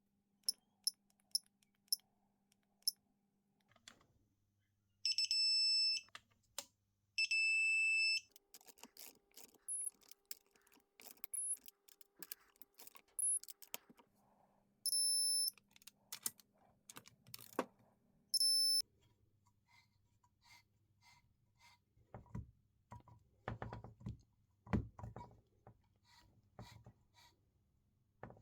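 Electronic beeping: a run of short high beeps, then a few longer beeps of about a second each. Light clicks and knocks of handling sound in between.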